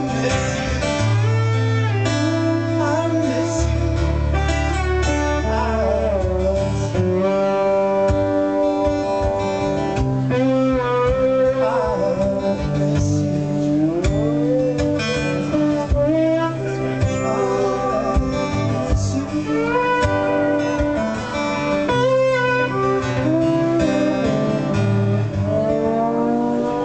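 Live acoustic guitar and electric guitar playing together, with a man singing; the lead guitar line has notes that bend in pitch.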